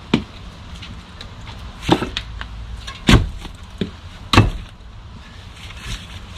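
Stones in a facing-stone wall panel being kicked and struck to break their mortar joints: five separate heavy thuds, the loudest about three and four and a half seconds in.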